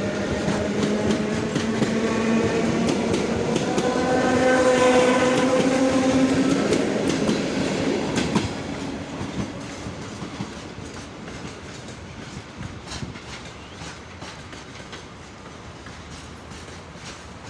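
Electric train passing by, with wheels clacking over the rail joints and a steady whine, loudest a few seconds in. The whine stops, and after about eight seconds the train noise drops and fades away.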